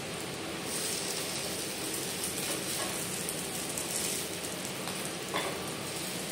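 Oil sizzling steadily in a nonstick pan around a sooji-and-potato pancake frying on low flame. One light tap of the wooden spatula on the pan about five seconds in.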